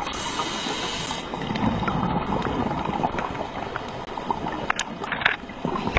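Muffled rumble and gurgle of water around a submerged camera, with a hiss during the first second and a few sharp clicks near the end.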